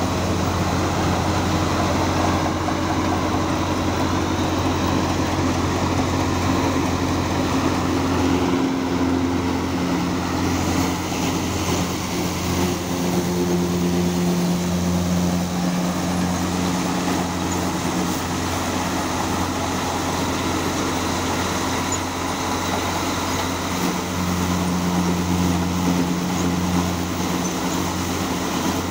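Swaraj 744 XT tractor's three-cylinder diesel running under load, driving a threshing machine through its PTO while dry crop stalks are fed into the drum. A steady mechanical drone whose hum shifts slightly in pitch a few times as the load changes.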